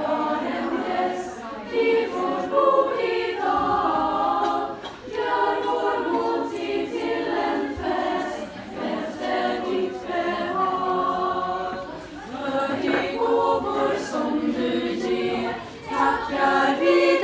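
Choir of young women singing a cappella, held notes sung together in several voices with short breaks between phrases.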